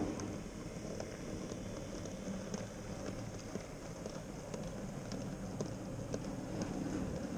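Minitrix V 160 N-scale model diesel locomotive and its freight wagons rolling past on the track: a steady rolling rumble with irregular sharp clicks of the wheels over the rail joints.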